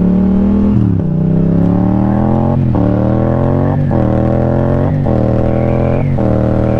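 Yamaha FZ-07's 689 cc parallel-twin engine accelerating hard from a standstill. The revs climb and then drop sharply at each of about five quick upshifts, about a second apart.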